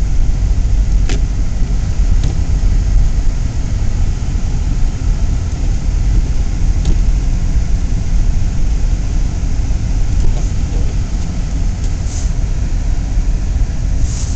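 Steady low rumble of a car being driven, heard from inside the cabin, with a few faint clicks.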